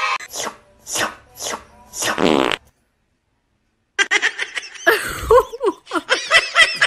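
A few short taps, then a fart-like sound about two seconds in; after a second of silence, a run of high, chattering voices.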